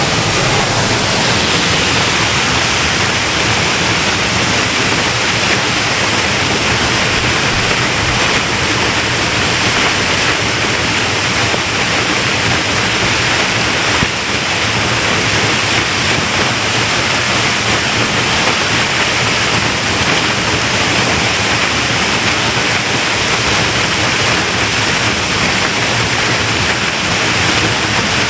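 Waterfall in spate after heavy overnight rain, a steady loud rush of falling water.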